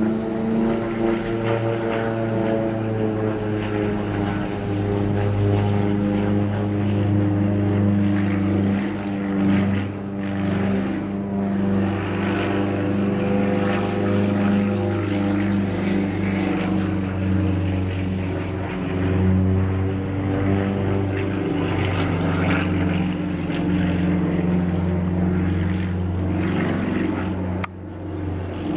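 Propeller airplane engine running continuously, its pitch drifting up and down as the aircraft manoeuvres, with a brief break near the end.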